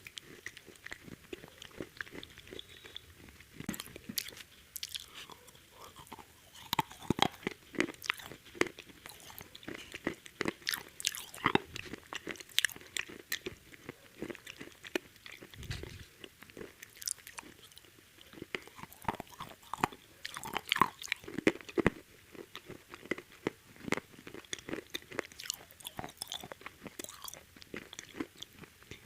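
Close-miked eating of KFC fried chicken: crunchy bites into the crisp breaded coating and chewing, in dense, irregular crunches throughout.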